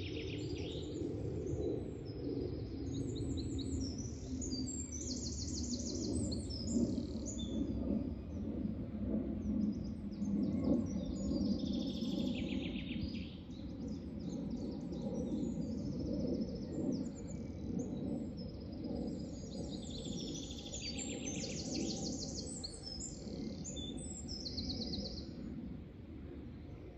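Several songbirds singing in overlapping short chirps and trills. One falling trilled phrase comes three times. A steady low background rumble runs underneath.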